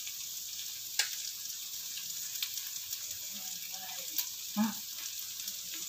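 Steady sizzling of fried potatoes, sausage and shrimp in sauce in a wok, with a few sharp crackles about a second in and again around four seconds in.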